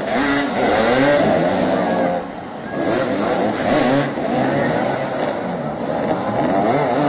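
Several motoball motorcycles revving up and down together as their riders jostle for the ball, the engine notes rising and falling over one another; they ease off briefly a couple of seconds in.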